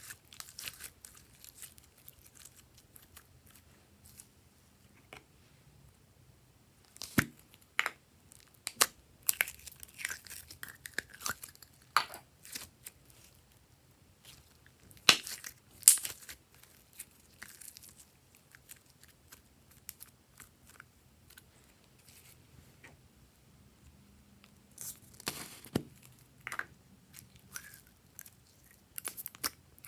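Glossy slime being squeezed, stretched and folded by hand, giving sticky pops and crackly clicks in spells, with quieter moments between; the loudest pops come about halfway through.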